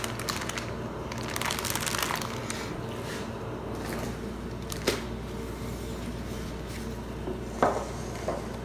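Zip-top plastic bag crinkling as buttermilk is squeezed out of it into a glass bowl, then two light knocks about five and eight seconds in.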